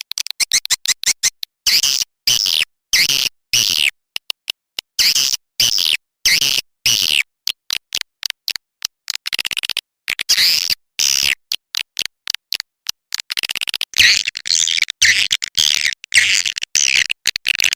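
Swiftlet calling-sound recording, the lure played to draw edible-nest swiftlets into a swiftlet house. Fast trains of clicks alternate with short, high twittering chirps, cut into bursts with silent gaps between them, and the chirping grows denser near the end.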